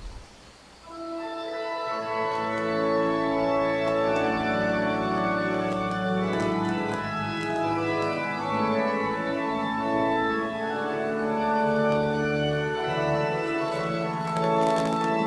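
Organ playing slow, sustained chords, coming in softly about a second in.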